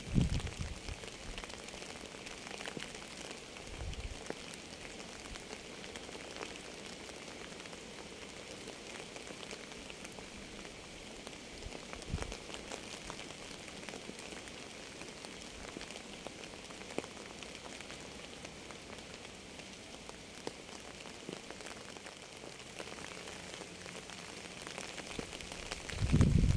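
Steady rain falling, with many small drops ticking on a surface. A few short low thumps break through, the loudest at the start and near the end.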